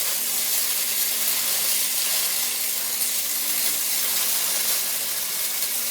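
Stick-welding arc burning on steel: a steady, even crackling sizzle with a faint low hum beneath.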